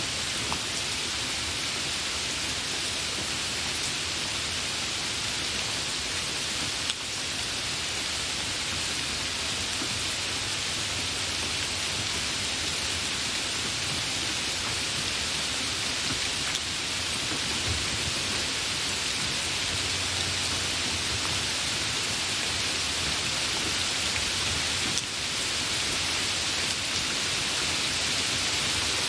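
Heavy rain falling steadily, a dense even hiss of many drops.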